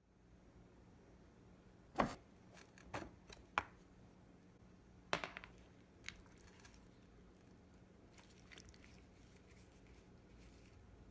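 Gloved hand squishing and rubbing a thick yogurt marinade into chicken leg quarters in a glass baking dish. A few sharp knocks and clicks fall in the first half, the loudest about two seconds in, over a faint, low, steady hum.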